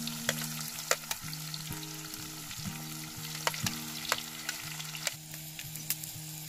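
Chopped onions sizzling in hot oil in a cooking pot, a steady hiss with scattered sharp pops. A repeating low musical pattern plays underneath.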